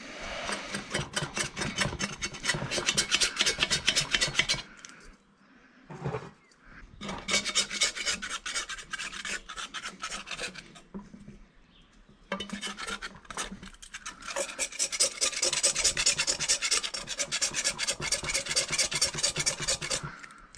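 A paintbrush scrubbing paint stripper onto the steel shell of a WW2 M42 helmet: quick rasping back-and-forth strokes in three bouts, with short pauses about 5 and 12 seconds in.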